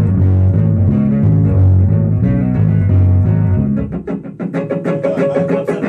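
Electric bass guitar and guitar jamming together. The bass line stops about four seconds in, leaving the guitar strumming chords on its own.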